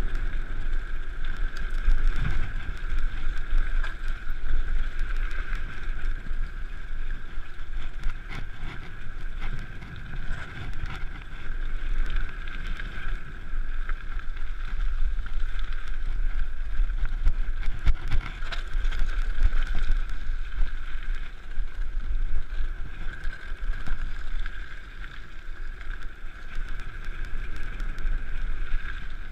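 Mountain bike descending a gravel trail at speed: wind buffeting the microphone over a continuous rumble of tyres on gravel, with scattered knocks and rattles from bumps in the trail.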